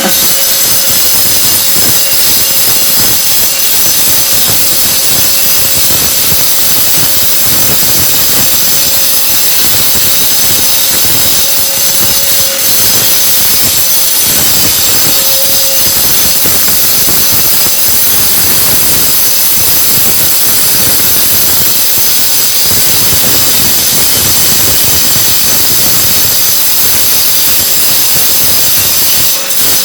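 Angle grinder running and cutting ceramic floor tile: a loud, steady high-pitched whine over a grinding hiss. It stops just before the end.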